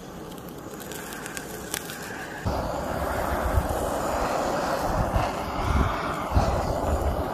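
Handheld butane gas torch flame hissing steadily as it sears the scales on fish steaks; about two and a half seconds in it suddenly gets louder, with an uneven low rumble underneath.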